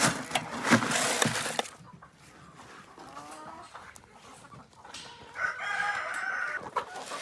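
Chickens in a coop: rustling and knocking for the first couple of seconds, then quieter, with a short call and then one long, drawn-out chicken call lasting about a second and a half near the end.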